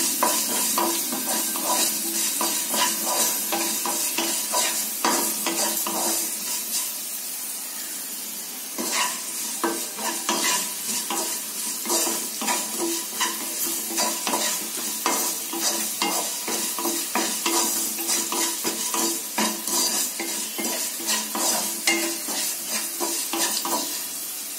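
Chopped bitter gourd sizzling in hot oil in a non-stick pan, stirred and turned with a wooden spatula that knocks and scrapes against the pan many times. The vegetable is being sautéed until it softens.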